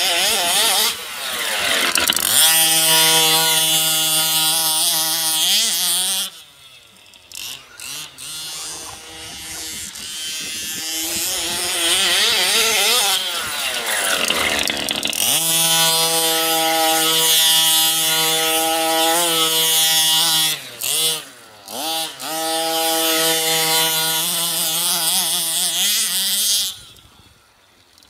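The small two-stroke gas engine of a King Motor T2000 1/5-scale RC truck, revving hard in long steady high-rev runs, then easing off and blipping back up several times, dropping off near the end.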